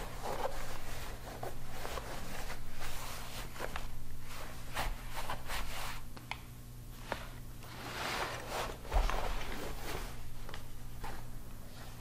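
Hands rubbing and smoothing a stiff waxed canvas apron on a tabletop: irregular rustling and scraping swishes of heavy fabric, with a few sharp clicks and a dull thump about nine seconds in, over a faint steady low hum.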